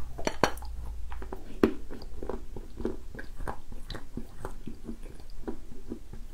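Close-miked chewing of moist edible clay (the variety called Anonim): soft, wet, irregular chewing clicks and crackles, about two to three a second, with one sharper click about a second and a half in.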